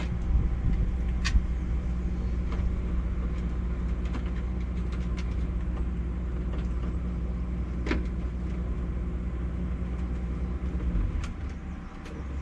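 A 48V DC RV air conditioner running with a steady low mechanical hum, with a few light clicks, until the hum drops away near the end as the compressor cuts out. The owner takes this premature stopping for a temperature-control fault.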